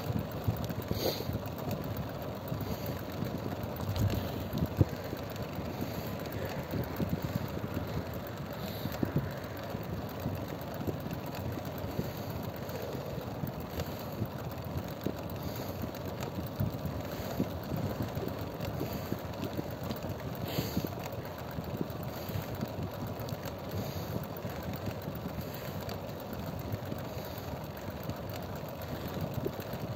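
Steady engine and road noise of a moving vehicle, a low even rumble with a few faint clicks.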